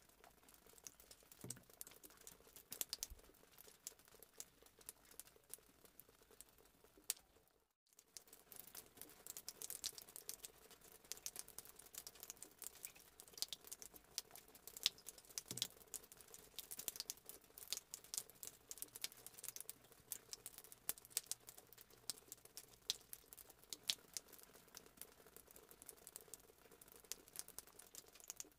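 Faint, continual clicking and crackling of soft mashed potato mixture being worked: a wooden spatula stirring it in a plastic bowl, then, after a short break about eight seconds in, hands pressing and shaping it into patties.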